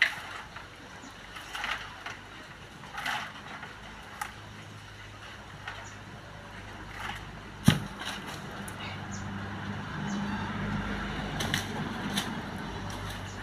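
Scrapes and knocks of a barefoot boy climbing down a coconut palm's rough trunk, with one sharp thud a little past halfway that is the loudest sound.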